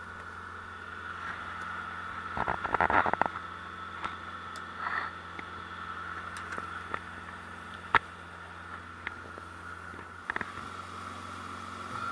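Steady drone of a sailboat's engine running under way, with scattered clicks and a short cluster of knocks about two and a half to three seconds in.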